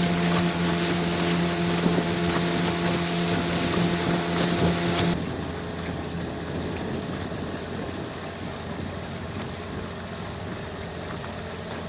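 Motorboat engine running steadily with a constant hum, mixed with wind and water noise. About five seconds in, the sound cuts abruptly to a quieter, steady rumble.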